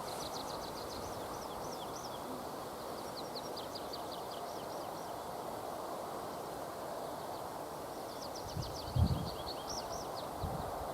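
A small songbird sings rapid phrases of quick high notes three times, over a steady hiss of forest ambience. A brief low thump comes about nine seconds in.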